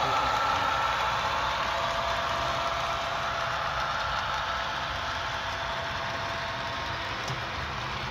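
Model freight train rolling past on a layout: a steady rumble of small metal wheels on track with a motor hum, slowly fading as the train moves away.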